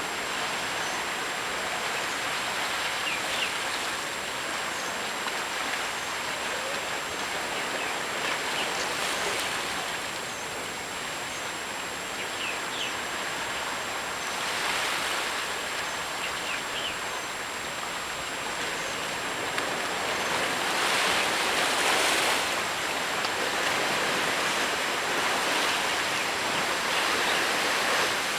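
Sea waves washing against the rocks below, a steady rush that swells and ebbs every few seconds and grows a little louder near the end.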